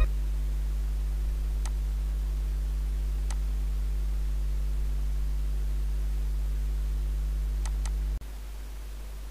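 Steady low electrical mains hum with a few faint computer-mouse clicks, the last two close together; the hum drops in level about eight seconds in.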